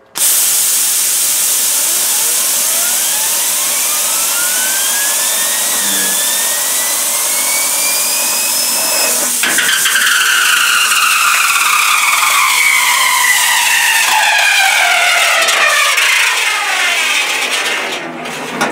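Compressed-air jet hissing as it spins a wheel bearing, whose whine rises in pitch for about nine seconds. Then a sudden break as the bearing comes off the spindle and runs loose around inside the steel tub, its whine falling for several seconds until the air cuts off.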